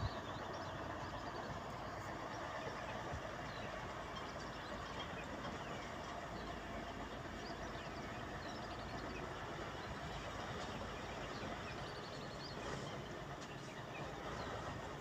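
Distant diesel truck engines running steadily as two trucks climb a rough dirt track, heard as an even rumble and hiss, with a few short high chirps over it.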